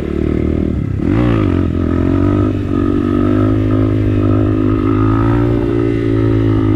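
Motorcycle engine running under way: the revs dip and pick up again about a second in, then climb and hold steady, dipping once more near the end.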